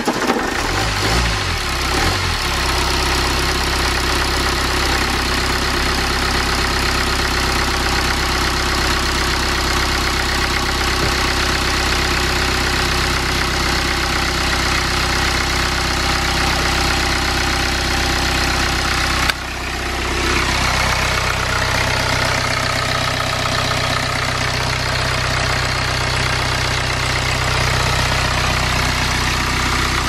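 BMW N47 four-cylinder diesel catching after cranking and settling into a steady idle within about two seconds: its first start after a timing chain replacement. The idle is briefly interrupted about two-thirds of the way through, then carries on.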